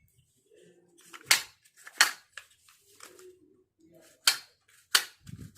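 Sharp clicks and knocks of hard plastic and metal parts being handled and pressed together as a new recoil starter is fitted onto a 58 cc petrol chainsaw. There are about five distinct hits, with quieter handling noise between them.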